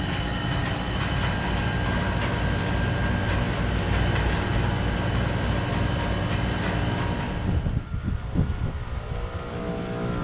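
Trane Odyssey heat pump outdoor unit in a defrost cycle, running with a steady loud hiss and hum that cuts off suddenly about eight seconds in, followed by a few low knocks before a steadier machine hum comes back.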